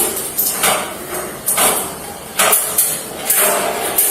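Metal clinking and jingling in short, sharp bursts about once a second.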